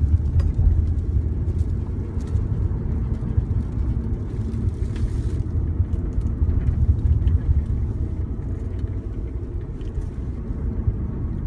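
Steady low rumble of a moving car heard from inside the cabin: road and engine noise while driving downhill.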